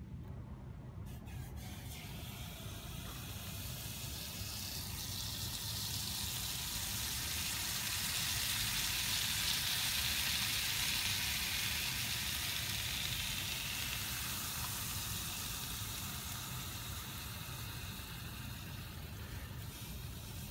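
Liquid nitrogen poured into a dish around a superconductor disc, boiling off with a steady hiss as it hits the warm material. The hiss swells to its loudest about halfway through, then eases. It is the sound of the superconductor being cooled toward its critical temperature.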